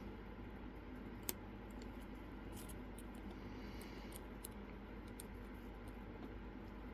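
Faint, sparse metallic clicks of lock picks working the pins of a Mul-T-Lock padlock, with one sharper click about a second in, over a steady hiss.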